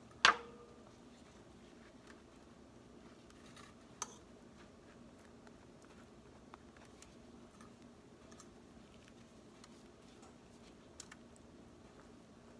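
Faint kitchen handling noises over a low steady hum: a sharp knock just after the start, a smaller click about four seconds in, and a few light ticks later, as buttered bread slices are handled over a foil-lined baking tray.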